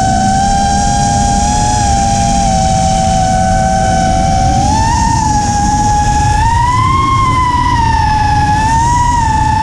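Electric motors of an FPV racing quadcopter whining, heard from the camera mounted on the drone, with a rushing wind noise underneath. The pitch rises and falls with the throttle, climbing about halfway through and peaking again a little later.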